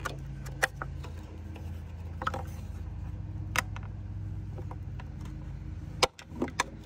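Scattered sharp plastic clicks and knocks as bulb sockets are twisted and pulled out of a Ford F-250 taillight housing, the loudest click near the end, over a steady low hum.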